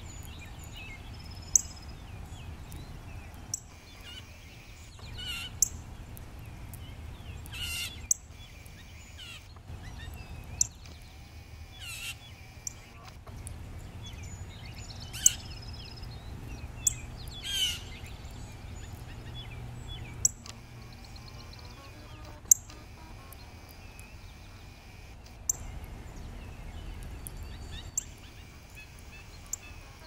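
Songbirds giving sharp, high chip calls every few seconds, about ten in all, with a few longer squeaky calls among them, over a low steady rumble.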